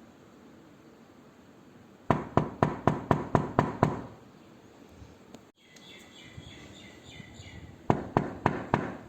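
Rapid knocking on a door: a quick run of about eight knocks, then after a pause a second run of about five.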